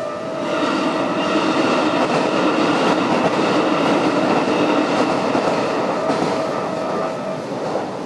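A Japanese level-crossing warning bell rings its steady electronic two-tone alarm while a Keikyu Daishi Line electric train rolls over the crossing, its wheels clattering on the rail joints. The train noise swells about half a second in, and the bell stops near the end.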